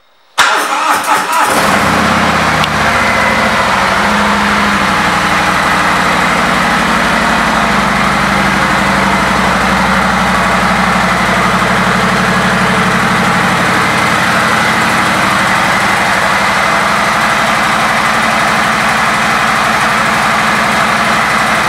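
2018 Harley-Davidson Road King Special's Milwaukee-Eight V-twin starting up. It cranks and catches about half a second in, runs unevenly for about a second, then settles into a steady, loud idle.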